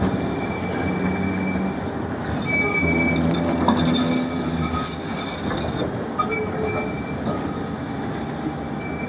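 FVV articulated tram's steel wheels squealing on curved track as it rolls slowly, with a high thin squeal that comes and goes several times over a low running rumble.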